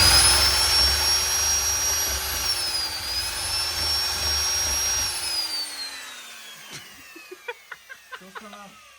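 Electric power tool running at speed with a steady high whine, dipping in pitch briefly about three seconds in. It is then released and winds down, the whine falling and fading, with a few light clicks as it slows.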